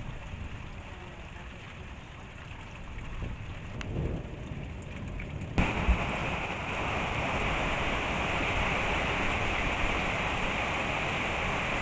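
Rain falling on a wet street: a faint low rumble with light rain at first, then, from a sudden cut a little past halfway, a loud, steady hiss of heavy rain.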